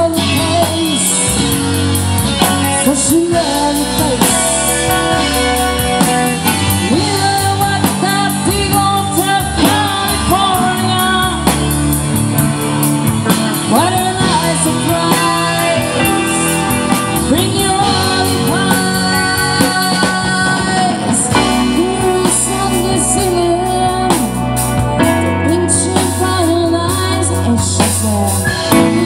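Live rock cover band playing: a woman sings over drum kit, electric guitar and keyboard.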